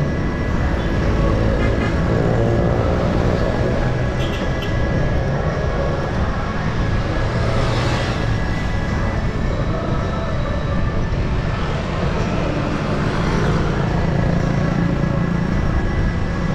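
City road traffic heard from a bicycle riding among it: motor vehicle engines running close by over a continuous low rumble.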